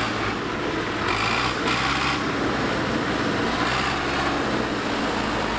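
Tractor engine running steadily with a fast mechanical clatter.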